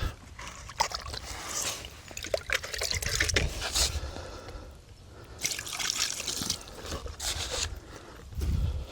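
Water splashing and trickling in irregular bursts as a hooked mirror carp is landed at the water's edge.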